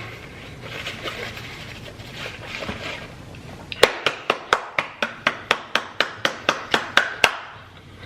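A quick run of about sixteen sharp, evenly spaced strikes, about four and a half a second, starting about four seconds in and stopping suddenly about three seconds later, like rapid claps or knocks on a hard surface.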